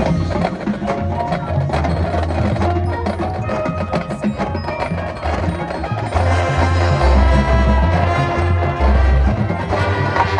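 High school marching band playing its field show, with pitched percussion among the winds and strong low notes. It gets louder about six seconds in.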